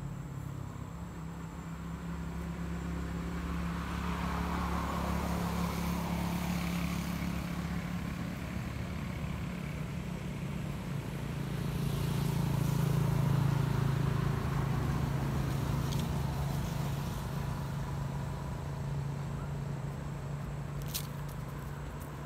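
Motor vehicle engines running with traffic passing, a steady low hum that swells louder about four seconds in and again around twelve to fourteen seconds in. A short sharp click near the end.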